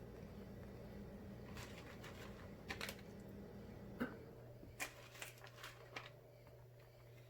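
Shredded cheese being sprinkled and spread by hand over pizza dough: faint, scattered soft rustles and light taps, about eight of them through the middle, over a low steady hum.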